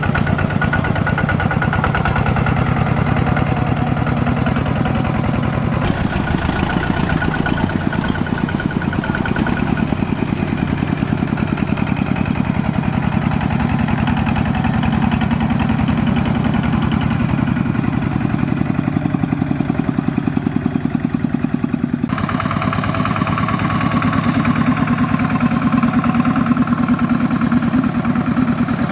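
Two-wheel power tiller's single-cylinder diesel engine running steadily with a fast, even chug, working under load as it drives out of deep mud. The sound changes abruptly twice.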